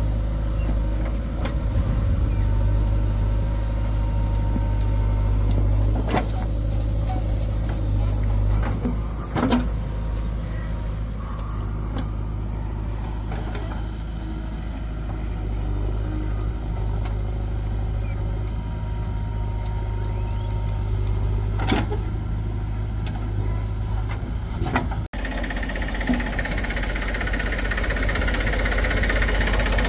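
Heavy diesel machinery engine running steadily with a deep low hum, broken by a few sharp knocks. The sound changes abruptly near the end.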